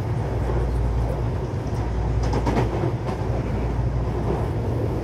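Series 7000 electric commuter train heard from inside a carriage while running: a steady low rumble of wheels and running gear, with a short cluster of sharp clicks or rattles a little past two seconds in.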